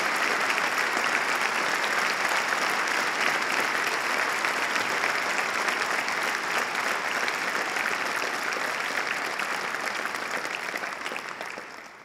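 Large audience applauding steadily in a big hall, the clapping fading away near the end.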